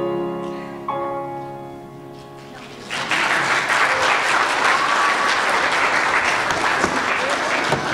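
The last sustained chords of the song's accompaniment ring out and fade. About three seconds in, the congregation breaks into applause, which is the loudest part.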